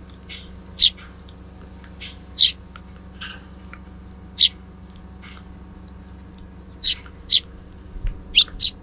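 Sparrows chirping: about a dozen short, sharp single chirps at irregular intervals, coming faster near the end, over a steady low hum.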